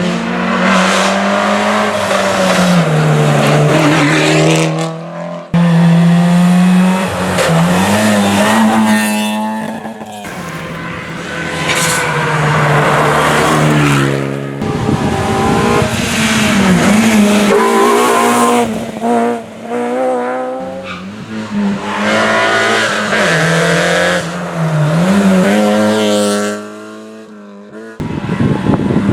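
Rally cars at speed on a stage, engines revving high and dropping with each gear change. Several passes are cut together, so the sound changes abruptly a few times.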